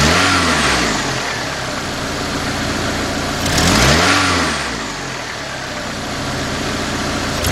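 Honda Accord 2.3 four-cylinder engine idling and revved twice, at the start and about four seconds in, each blip rising and dropping back to idle. The throttle response is sluggish, one the mechanic isn't liking though he allows it may be normal.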